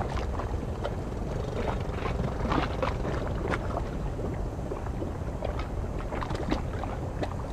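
Wind rumbling on the microphone at the harbour's edge, with small waves lapping and splashing irregularly against the waterfront.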